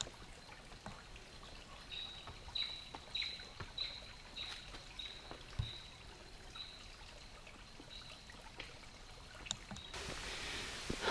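A bird repeating a short high, downward-sliding note a little under twice a second, over faint clicks and knocks of footsteps on rocks.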